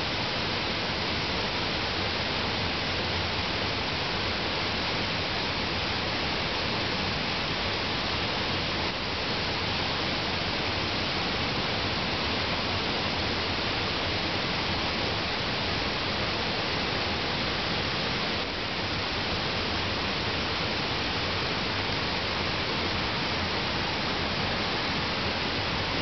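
Waterfall pouring into a pool, a steady rush of falling water.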